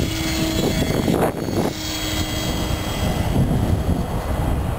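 Electric motor and propeller of a Dynaflite Bird of Time model glider running at a steady pitch, over a rumble of wind on the microphone.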